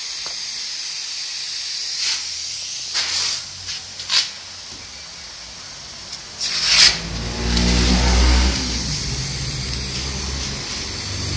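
VW Transporter van's engine starting about seven seconds in and then running with a low, steady hum, after a steady hiss broken by a few short hissing bursts.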